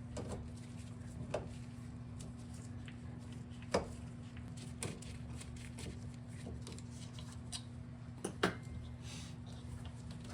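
A few scattered light clicks and knocks of hand tools and small metal parts during the teardown of a small dirt bike, the loudest near the end, over a steady low hum.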